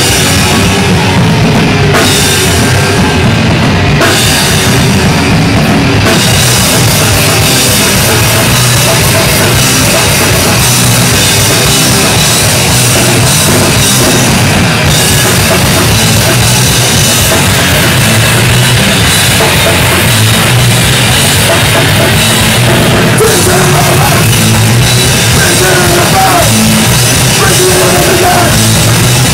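Punk rock band playing live, loud and dense: amplified band with a drum kit driving the rhythm.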